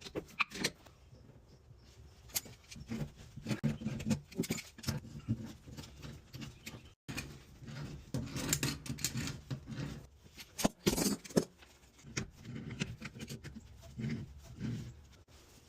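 Plumbing tools and metal pipe fittings being handled while making water and gas connections: irregular clinks, knocks and rattles with short pauses between them.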